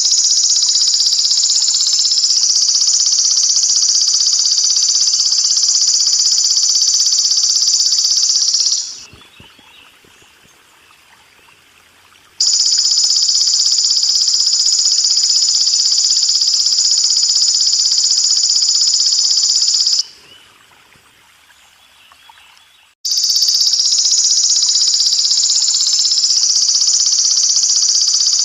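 Belalang emas (golden grasshopper) stridulating: a loud, continuous high-pitched buzzing trill. It stops twice for about three seconds each time, leaving only a faint background hiss of water.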